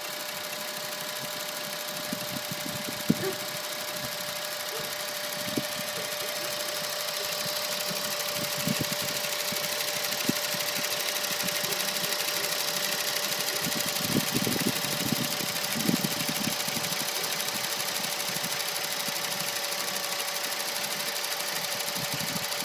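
2010 Honda Insight's 1.3-litre four-cylinder engine idling, with a steady, fast clicking throughout and a few short thumps. The clicking occurs only at idle and not while driving, on an engine with 12,000 miles and regular synthetic oil changes; its cause is undiagnosed.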